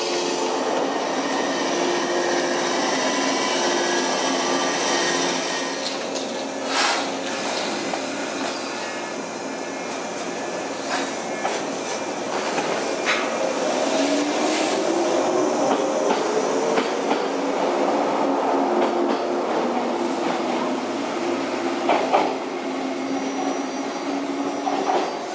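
Shinano Railway 115 series electric train at a platform, its onboard electrical equipment humming steadily. About fourteen seconds in, a motor whine rises in pitch as the train gets moving. A few sharp clanks come in between, the loudest near the end.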